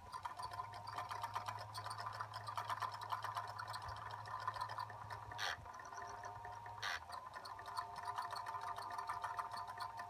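Wind-up German singing-bird cage automaton running: its clockwork chirping mechanism gives a rapid fluttering clatter over a thin steady tone, with a couple of sharper clicks about halfway through. The chirping box is thought by the owner to probably need fixing.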